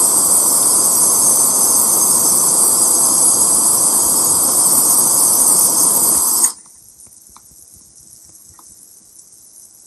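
Handheld gas torch flame hissing steadily against a block of fireproof core material, then stopping abruptly about six and a half seconds in; a faint low hiss with a few small ticks follows.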